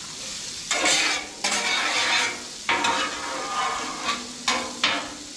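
Asparagus sizzling in bacon grease on a Blackstone flat-top griddle, with metal spatulas scraping across the steel griddle surface several times as the spears are tossed.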